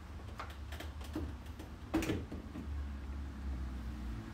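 Plastic rear bumper cover of a 2021 Honda Accord Sport being pulled outward at the corner by hand to unclip it: a few light clicks and one sharper crack about two seconds in as the retaining clips are worked loose.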